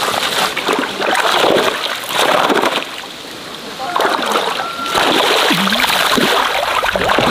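Water splashing and sloshing as a large hand net is swept and scooped through shallow, muddy pond water, with a quieter stretch about three seconds in.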